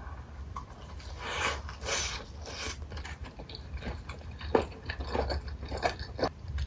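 Close-miked eating of spicy chicken feet in broth: wet chewing in the first half, then many short, sharp crunchy clicks, the loudest about four and a half seconds in.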